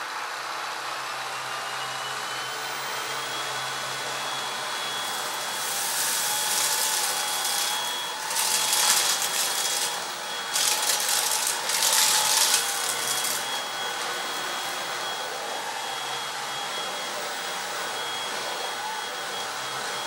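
Cecotec Conga Popstar 4070 H2O cordless stick vacuum running in turbo mode. Its motor whine climbs in pitch over the first few seconds as it spins up, then holds steady. Through the middle stretch come several bursts of hissing and crackling as coffee, birdseed and chunks of textured soy are sucked up.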